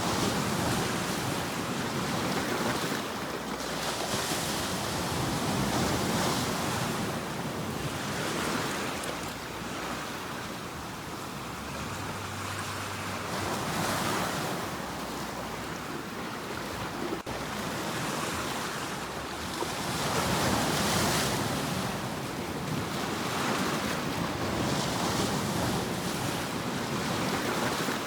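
Sea waves breaking and washing on the shore, a steady surf with a fresh surge of spray every few seconds.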